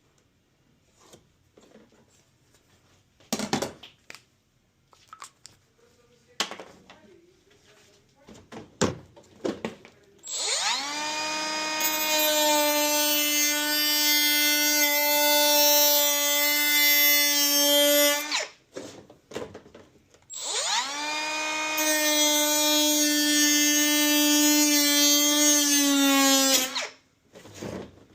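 A power drill runs in two long runs of about eight and six seconds, its motor whine rising as it spins up each time and then holding steady. A few knocks and clicks of handling come before it.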